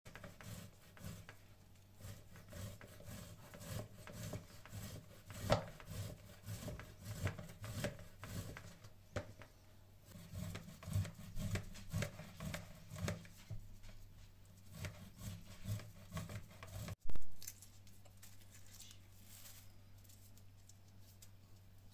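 Ham being grated on a stainless-steel box grater into a plastic bowl: repeated rasping scrapes, one per stroke. About three-quarters of the way through there is one sudden loud knock, after which it is quieter, with the faint crackle of shell being peeled off a boiled egg.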